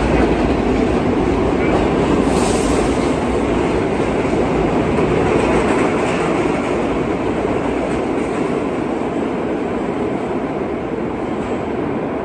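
Kawasaki R68A subway train departing a station, its cars running close past and the sound slowly fading as the last car pulls away. A brief high hiss about two seconds in.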